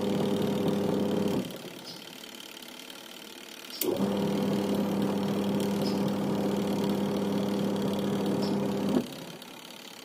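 Wash motor of a Sharp twin-tub washing machine turning the pulsator with a steady hum, which stops after about a second and a half, starts again about two seconds later in the opposite direction, and runs for about five seconds before stopping again. This run, pause and reverse is the wash section's normal agitation cycle, showing it now works.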